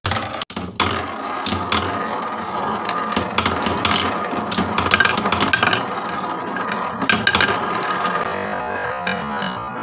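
Glass marbles rolling and clattering down a HABA wooden marble run: a steady rolling rush with a dense run of clicks as they knock against the wooden track and each other.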